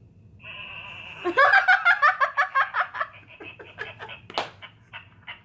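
People laughing: a held high squeal about half a second in, then giggling in quick, rhythmic bursts that gradually trail off.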